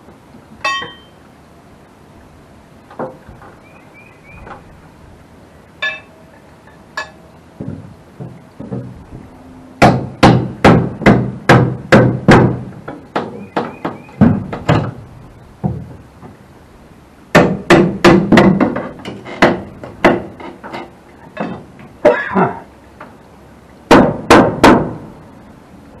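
Hammer blows driving nails overhead. There are a few scattered knocks at first, then quick runs of strikes about ten seconds in and again about seventeen seconds in, and three last blows near the end.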